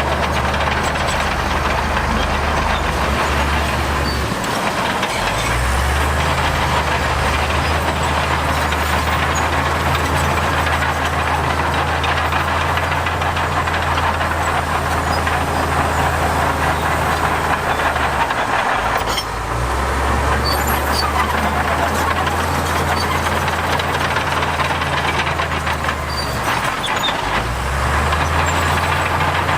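Heavy diesel construction machinery running steadily under work, with a deep engine note and a dense mechanical clatter over it, dipping briefly three times.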